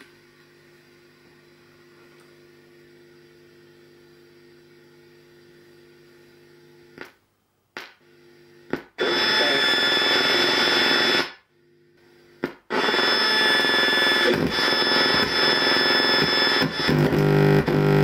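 Faint steady 50 Hz mains hum from the transformer, heard through the Marantz CRS-8000 receiver's speakers; it is mild because the transformer is shielded. About halfway it breaks off with a few clicks, and then a tuned-in radio station's music plays loud through the speakers, cutting out briefly once.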